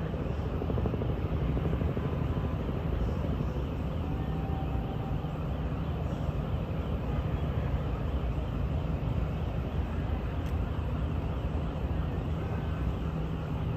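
Steady low rumble of Manhattan street noise: traffic and engines, with no sharp bangs.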